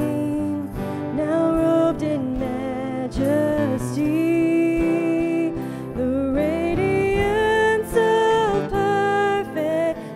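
A worship band playing a gentle song: a man singing the lead in long held notes, with acoustic guitar and keyboard.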